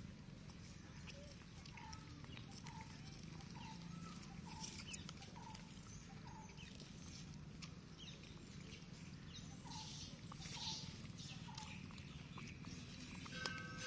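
An animal's short call, repeated about twice a second in two runs, over faint outdoor background noise; music comes in at the very end.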